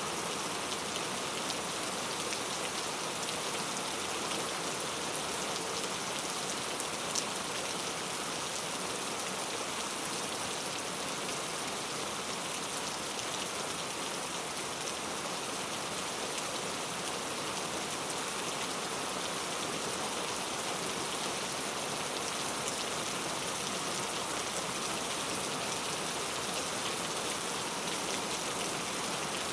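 Steady rain falling in a dense, even patter of drops, with one sharper drop tick about seven seconds in.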